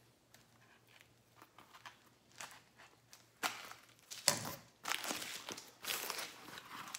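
A taped cardboard shipping mailer being cut open with a knife and pulled apart: faint scraping at first, then loud rustling and tearing of cardboard and packing tape over the last three seconds or so.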